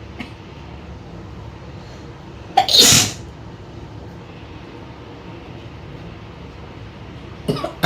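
A woman sneezing once, loud and short, about two and a half seconds in, with a second, quieter sneeze near the end. The sneezes are brought on by tickling the inside of her nose with cotton wool.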